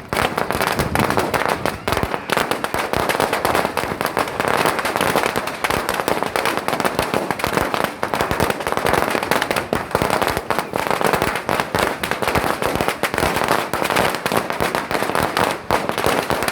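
A long string of firecrackers going off, a rapid unbroken stream of sharp bangs.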